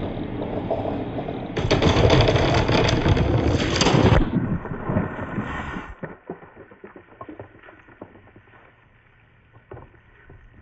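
Many marbles rolling and clattering together through a marble run, a dense rattle that is loudest in the first four seconds, then thins out to a few scattered clicks by about six seconds in.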